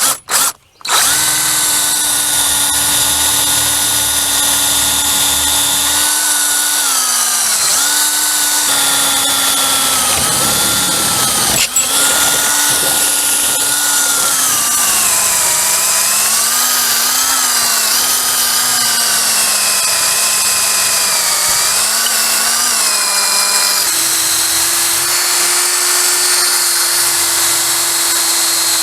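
Electric drill boring a quarter-inch hole through a wooden 4x4 post and fence pickets, running continuously. Its motor pitch sags and wavers under load through the middle, then rises and holds steady for the last few seconds.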